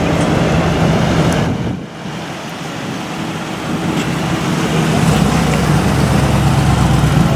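Mercedes-AMG G63's twin-turbo V8 running in street traffic. It drops away briefly about two seconds in, then comes back louder and deeper from about five seconds in.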